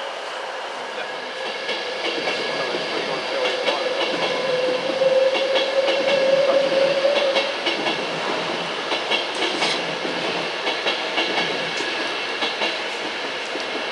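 Train moving past on the track, its wheels clicking over rail joints above a steady rumble that grows loudest around the middle and eases off towards the end. A faint whine rises slightly in pitch for a few seconds near the middle.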